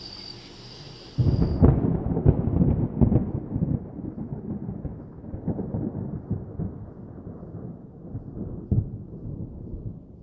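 A deep rumble with crackles, like a thunder sound effect, starts suddenly about a second in. It slowly fades and grows duller toward the end.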